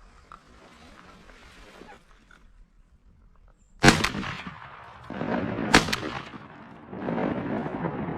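Two shotgun shots about two seconds apart, the first followed by a short echo, with stretches of rough, rustling noise between and after them.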